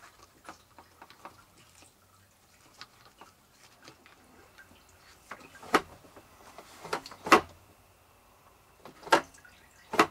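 Rubber ball seal of a Dometic 310 RV toilet being pressed and worked onto the edge of the bowl outlet: faint small clicks at first, then about five loud, sharp snaps and clacks from about halfway through.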